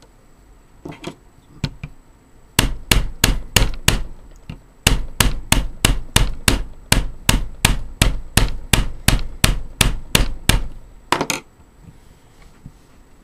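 A small flathead screwdriver knocking repeatedly into the sealed plastic hub of an AVC hydraulic-bearing PC fan, about three sharp knocks a second with a short break, trying to punch an access hole through to the bearing.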